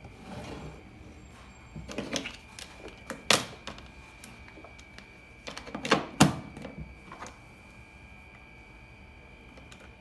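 Handling noise from a resin tabletop fountain and its pump cord on a wooden table: scattered clicks and knocks, with the sharpest near three seconds in and a cluster just after the middle.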